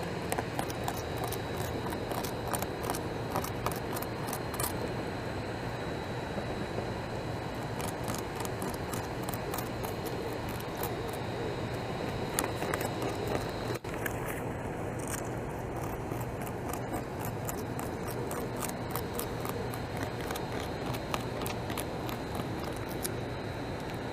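Beaver gnawing bark off a log: an irregular run of sharp clicks and scrapes from its teeth over a steady background hiss with a thin, high, steady tone. The sound briefly drops out a little past halfway.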